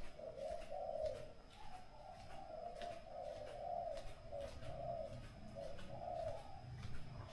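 A dove cooing over and over in low, repeated hoots.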